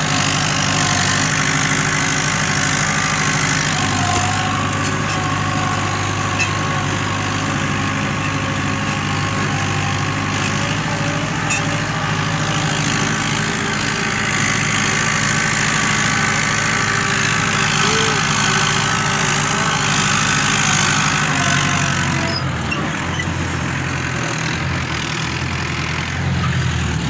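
Tractor engine running steadily under load as it pulls a furrowing implement through the soil. About three-quarters of the way through, the engine note drops lower and a little quieter.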